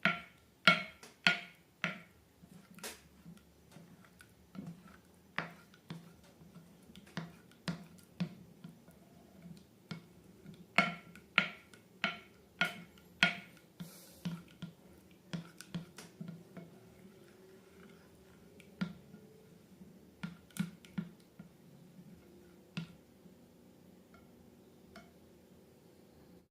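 Slime being pressed and worked by hand, giving a series of sharp snapping pops at irregular intervals. They come in quick clusters and grow sparser and softer in the second half.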